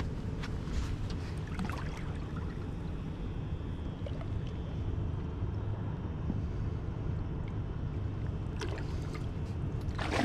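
River water sloshing against the side of a boat over a steady low rumble, as a flathead catfish is lowered into the water by hand and released. Near the end comes a loud splash as the fish kicks away.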